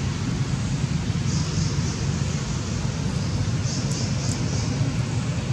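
Steady low rumble with a hiss over it, and a few faint high chirring bursts.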